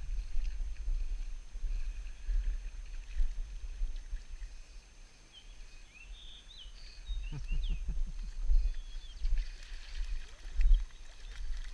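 Outdoor riverside ambience: a fluctuating low rumble, with a few short, high chirps about halfway through.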